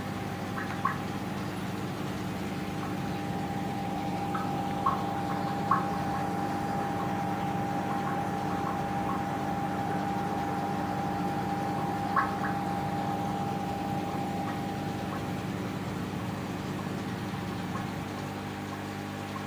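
Aquarium pump humming steadily, with a few short, faint clicks scattered through; a higher tone in the hum fades out about three quarters of the way through.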